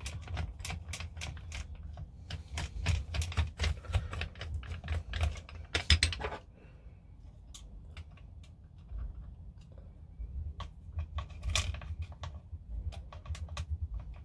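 A quick run of small clicks and taps as a screwdriver undoes screws inside an airsoft M4's pistol grip. About six seconds in this drops to fainter, scattered clicks as small plastic and metal parts are handled.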